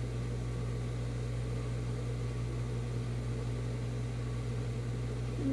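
Industrial sewing machine running steadily with a continuous motor hum, stitching the folded edge binding of a fabric rug.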